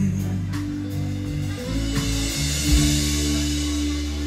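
Live band playing held chords on bass, electric guitar and keyboard, with a sharper hit nearly three seconds in, recorded on a Shure MV88 stereo microphone with automatic gain control off.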